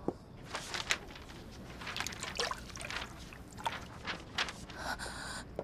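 A sheaf of paper dropping onto a swimming pool's water, then irregular small splashes and sloshing of the water as the pages sink.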